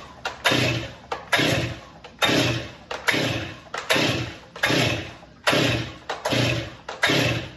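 Stihl MS 261 C chainsaw's 50 cc two-stroke engine revved in quick throttle blips, about one every second, dropping back toward idle between each. The saw is running properly: "that's what it's supposed to sound like."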